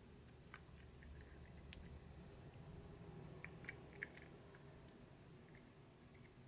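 Near silence, with a few faint, light clicks of small metal parts being handled: a brake pad spring and pads being fitted into a brake caliper.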